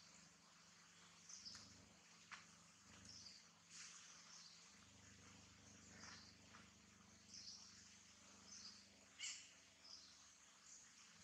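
Near silence: faint outdoor ambience with soft high chirps repeating about every second or so, and a couple of faint clicks.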